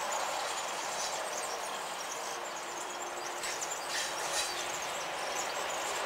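ET22 electric locomotive hauling a single coal wagon, approaching: a steady rumble of running gear and motors, with a faint hum in the middle.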